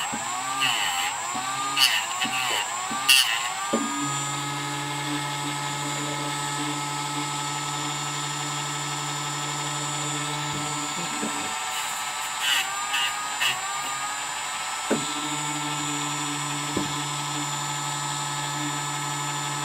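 Handheld power tool running steadily with a high motor whine, trimming the Hogue rubber grip to fit. Its pitch sags and wobbles when it bears on the material, about half a second in for a few seconds and again near the middle, with a few sharp clicks.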